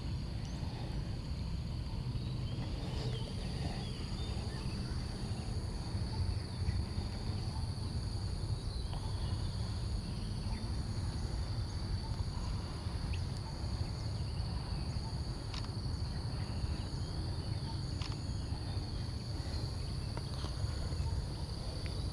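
Steady high-pitched insect drone with an even low rumble underneath and a few faint clicks.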